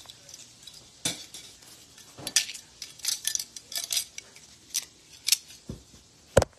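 Irregular light clicks and clinks of small hard objects being handled, about a dozen spread unevenly, with one louder knock near the end.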